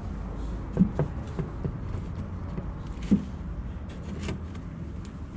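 Light wooden knocks and clicks as a carpet-faced plywood door panel is set into and slid along a plastic U-shaped track on a plywood cabinet: a cluster of knocks between about one and two seconds in, a firmer one about three seconds in and a faint click after it. A steady low hum runs underneath.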